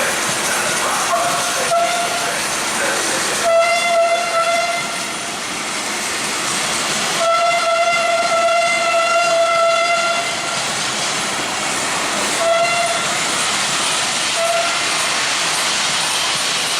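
A historic locomotive sounds its whistle in a series of six blasts on one steady pitch: two short toots, a longer one, a long blast of about three seconds, then two more short toots. A steady hiss runs underneath.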